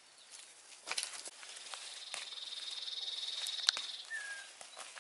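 A high, rapid buzzing trill, like an insect's, swells for about two and a half seconds and then stops, followed by a short falling chirp. Light taps and rustles are scattered throughout.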